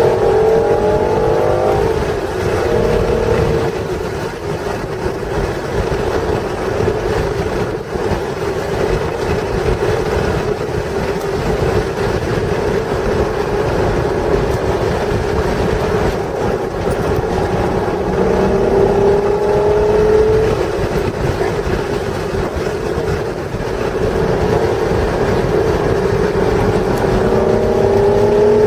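1996 Acura NSX's stock 3.0-litre V6 engine pulling hard, its pitch climbing as it accelerates near the start, about two-thirds of the way through and again near the end, with a steadier drone in between. Steady wind and road noise underneath.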